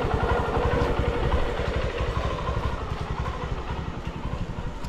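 Motorcycle engine running at idle, a rapid, even low pulsing that grows gradually quieter.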